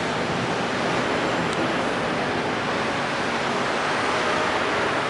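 Steady rushing noise of a Long Island Rail Road M-7 electric multiple-unit train running through on the tracks.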